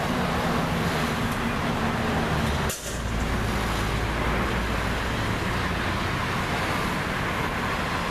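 Motor vehicle engine running amid steady traffic noise. About three seconds in there is a brief dip, after which the hum turns to a deeper low rumble.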